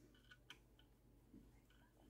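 Near silence with a few faint ticks of a steel hex key turning a screw in the plastic hotend housing of a 3D printer, the clearest about half a second in.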